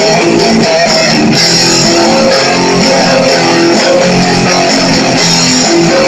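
Guitar music playing steadily, with plucked and strummed notes.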